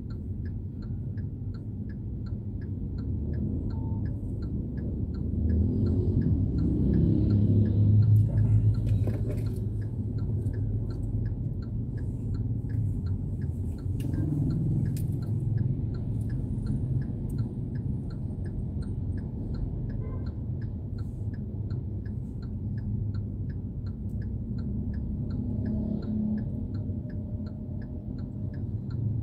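Street traffic passing: a steady low rumble of car and motorcycle engines and tyres, swelling as vehicles go by, with a faint steady quick ticking throughout.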